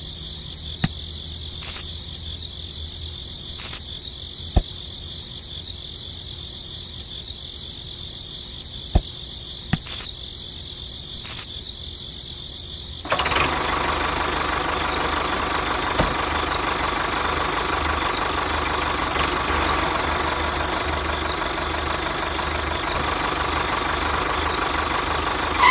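A few sharp clicks as the toy tractor's wheel is handled and fitted. About halfway through, the homemade miniature tractor's small electric motor and gears start suddenly and run on with a steady whirring whine as it drives under load.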